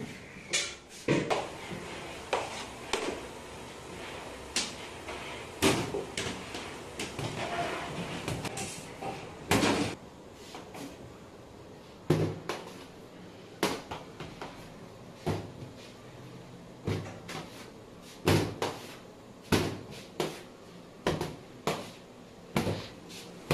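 Irregular knocks and thuds on a metal-topped worktable, about one a second: a long knife striking the table as it cuts through a large mass of porotta dough, and dough pieces being set down on the tabletop.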